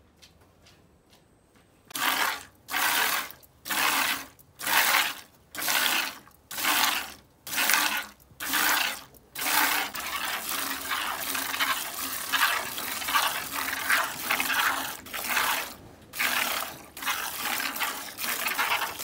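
A cow being milked by hand into a plastic bucket: jets of milk squirting into the bucket, about one squirt a second starting some two seconds in, then quicker, near-continuous streaming from about ten seconds in.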